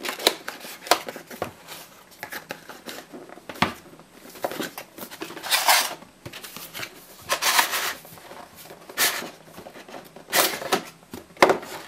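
Cardboard graphics-card packaging being handled: a plain brown inner box sliding out of a printed outer sleeve, with several scraping swishes of cardboard on cardboard and small knocks of the box in the hands.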